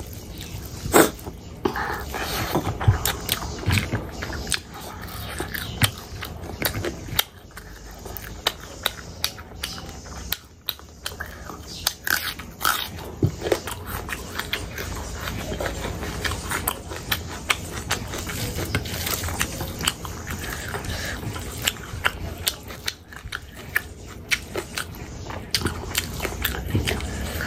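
Close-miked eating by hand: mouthfuls of rice and fried pork pickle chewed with irregular wet smacks and clicks, and fingers squishing and scooping rice on the plate.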